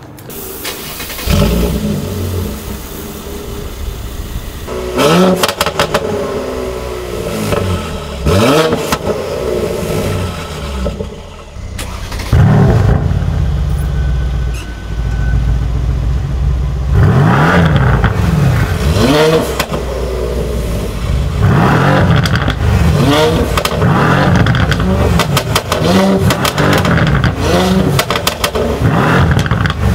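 Mercedes-AMG C63 S twin-turbo V8 and remapped C43 twin-turbo V6 exhausts, running at standstill and revved again and again: repeated sharp rises and falls in engine pitch, with crackles as the revs drop, and a run of quick blips in the second half.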